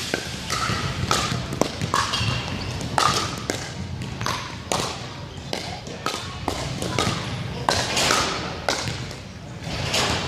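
Pickleball rally: sharp pops of paddles striking a hollow plastic pickleball, mixed with the ball bouncing on a hardwood gym floor, coming irregularly about one to two times a second.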